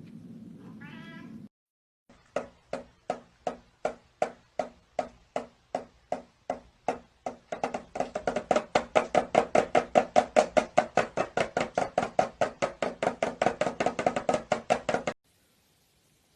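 A cat giving a short rising meow, then a long run of short, clipped, repeated calls. The calls come about two to three a second at first, then speed up to about four or five a second and grow louder, before stopping abruptly near the end.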